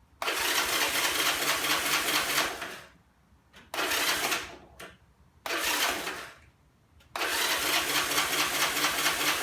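C70 motorcycle's electric starter cranking the engine in four bursts, two longer ones and two short ones in between, with the engine turning over but not catching, on choke while fuel is still reaching the carburettor.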